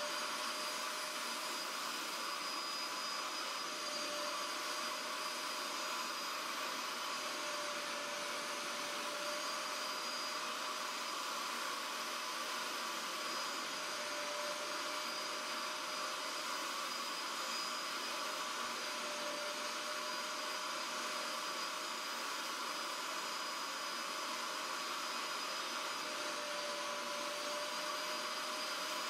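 Portable upholstery spot-cleaning extractor (Bissell Spot Clean) running steadily. Its suction motor gives a constant whir with a thin high whine as it draws diluted cleaner back out of a cloth car seat.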